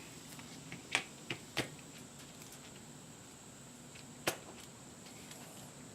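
A few light, sharp clicks and knocks, about four in all and the last one the loudest, as the parts of an AccuSpray paint gun are handled and fitted together.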